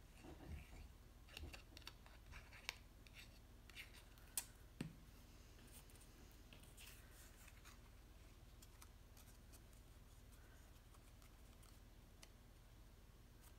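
Faint handling of cut cardstock pieces and a small plastic glue bottle: a few soft rustles and light taps in the first five seconds, then near silence with room tone.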